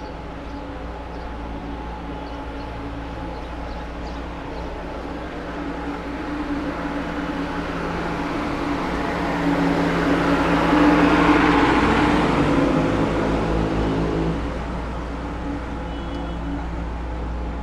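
Elevated #6 subway train passing, growing louder to a peak about eleven seconds in and dropping away by about fourteen seconds, over a steady street background.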